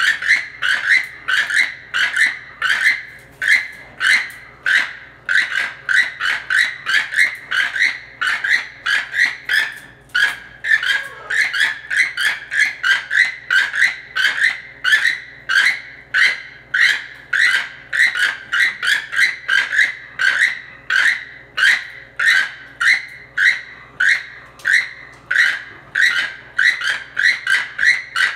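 Keel-billed toucan calls: short, dry notes repeated steadily, about three a second.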